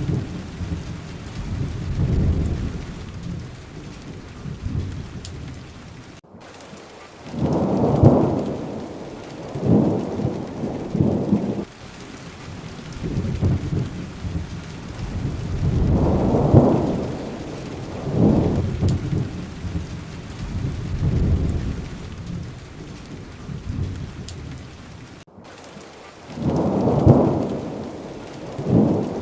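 Steady rain with rolling thunder, the low rumbles swelling and fading every few seconds, loudest about eight, sixteen and twenty-seven seconds in. The sound cuts out for an instant twice.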